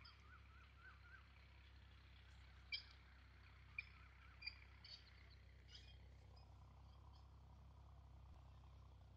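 Near silence with a low steady rumble, broken by a few brief, high chirps from a bird between about three and six seconds in.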